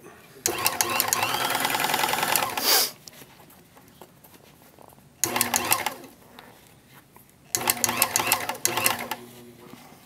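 NC carpet serger stitching the edge of a piece of carpet in three runs, a longer one of about two seconds and then two shorter ones, stopping in between. Each run is a fast, even stream of stitch strokes.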